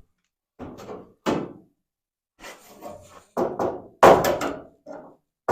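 Hammer blows on car-body sheet metal against a hand-held body dolly: about seven or eight irregular knocks, the loudest about four seconds in.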